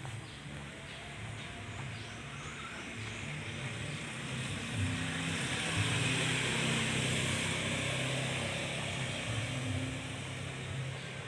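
A motor vehicle engine humming as it passes by, growing louder from about four seconds in and fading again near the end.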